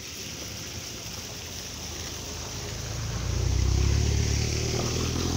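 A car passing close by on a muddy dirt road, its engine and tyres a low rumble that grows louder and comes closest a little over three seconds in.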